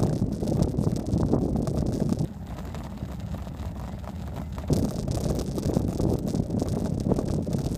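Wind buffeting the microphone of a camera riding on a moving bicycle, with a low road rumble. It eases off for a couple of seconds about a third of the way in, then comes back just as strong.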